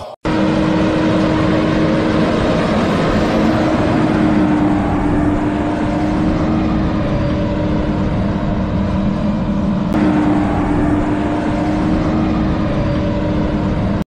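A vehicle engine running steadily with a constant hum. The sound starts abruptly, has a brief break about ten seconds in, and cuts off suddenly near the end.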